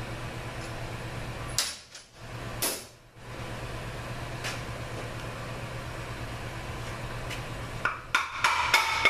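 Steady background hum with a couple of sharp clunks in the first few seconds. Near the end comes a run of sharp metallic knocks that ring, as the extension housing of a Toyota A340 automatic transmission is knocked and worked loose from the case.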